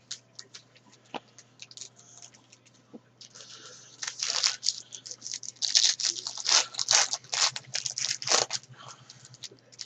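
Trading card pack wrapper crinkling and tearing open, after a few light clicks of cards being handled.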